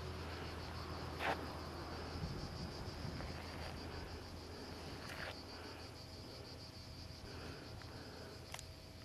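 Crickets chirping in the summer grass: a steady, fast, high-pitched pulsing trill. Three short clicks break in, the loudest about a second in.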